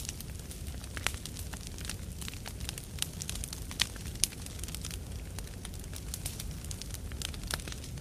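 Large campfire burning: irregular crackling and snapping of the wood over a steady low rumble of the flames, with a few sharper pops, the loudest a little before halfway.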